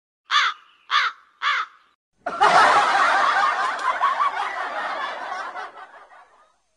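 Meme sound effect: three short caw-like calls about half a second apart, then a sudden burst of laughter that slowly fades out over about four seconds.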